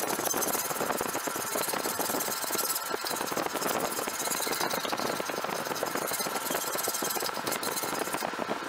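Hand file rasping across a forged steel railroad spike clamped in a bench vise, in steady repeated strokes; the scraping stops shortly before the end.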